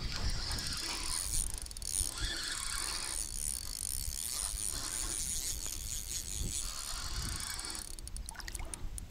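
Spinning reel being cranked steadily, winding line in, over a low rumble of wind and water around the boat.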